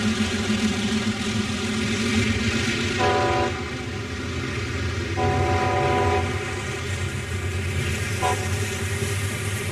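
A train running with a steady rumble, sounding its multi-tone air horn: a short blast about three seconds in, a longer one about two seconds later, and a brief toot near the end.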